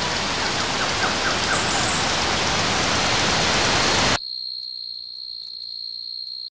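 Loud steady hiss of rain that cuts off abruptly about four seconds in, leaving a thin, high, steady ringing tone that then stops.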